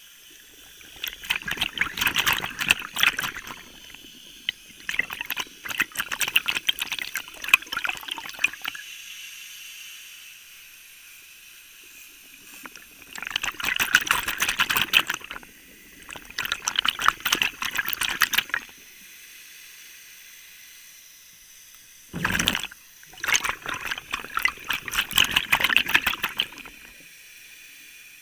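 Scuba diver's exhaled air bubbling out of the regulator underwater: six crackling, fizzing bursts of two to three seconds each, with quieter breaks between them. A brief low thud comes just before the last burst.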